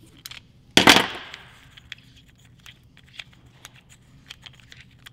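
Handling noise as a plastic sprayer nozzle solenoid is twisted apart by hand: one loud, sharp clack about a second in, then light scattered clicks and ticks of the plastic parts.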